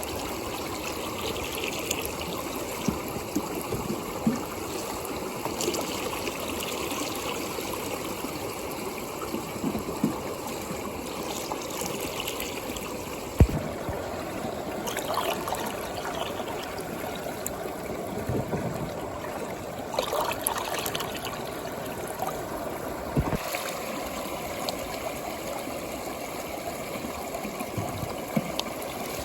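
Water swirling and gurgling in a plastic tube as a whirlpool, with air bubbles rising through it. It is a steady running-water sound with scattered short plops, two sharper ones about 13 and 23 seconds in.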